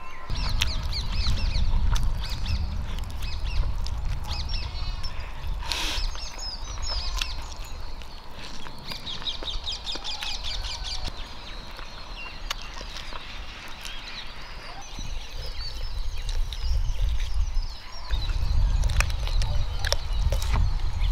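Birds chirping and calling in many short, quick notes, with a low rumble at the start and again in the last few seconds.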